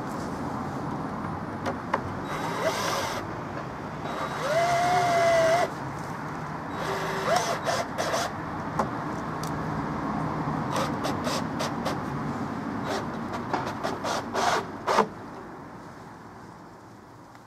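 Wooden boards being handled and set on a log, with scattered knocks and taps of wood on wood, over a steady background hum of traffic. A short held tone sounds about five seconds in.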